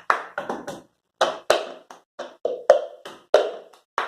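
A cup being tapped and knocked in a quick repeating rhythm, cup-song style: about fifteen sharp strikes in short groups, some with a brief ring.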